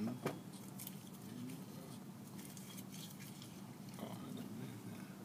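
Quiet room tone with a faint steady low hum and a few soft clicks and rustles, one just after the start and a few more around four seconds in.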